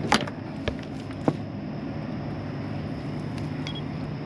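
Steady low motor hum, with three sharp clicks or knocks in the first second and a half.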